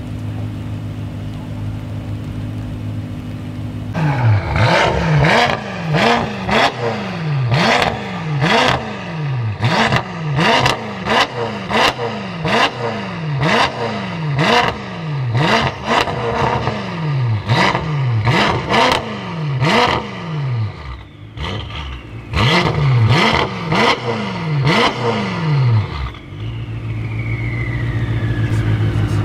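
BMW M5 F10's twin-turbo V8, fitted with a Meisterschaft race exhaust, idling at first and then blipped through a long series of quick free revs, each sharply rising and falling, about one a second. There is a brief pause a little past the middle, and it settles back to a steady idle near the end.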